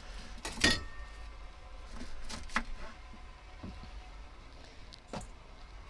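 A knife cutting the root end off a leek on a wooden chopping board: a few sharp knocks and crunches, the loudest about half a second in with a short ring after it, then quieter ones around two and a half and five seconds in.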